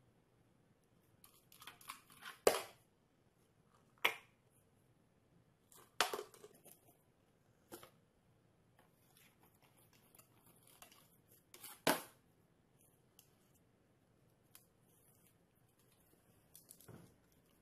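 Sparse sharp taps and knocks, the loudest about two and a half seconds in and again near twelve seconds, with faint rustling between: a small dog pawing at a tin can and a cardboard box on a glass-topped table.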